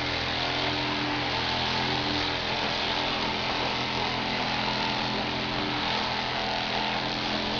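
Electric Vibracussor percussion therapy device running steadily, a motor hum with a buzzing hiss, while held against a dog's lower back to ease muscle spasm.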